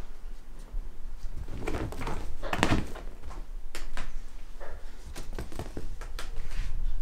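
Scattered soft knocks and rustles of a cat playing with a string wand toy on a fabric sofa, pouncing and tugging at the string, with a louder bump a little over two seconds in.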